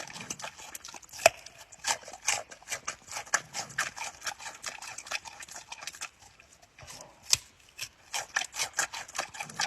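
A rapid, irregular run of sharp clicks and taps, several a second, with a short lull about six seconds in.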